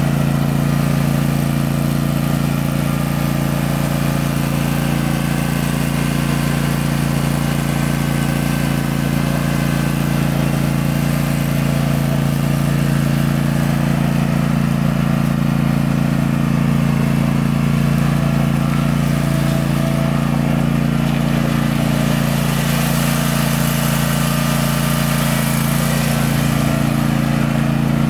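World Lawn 60-inch zero-turn riding mower's engine running at a steady speed as the mower is driven.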